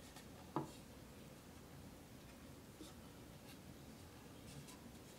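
Near silence: room tone, with one sharp click about half a second in and a few faint ticks after it.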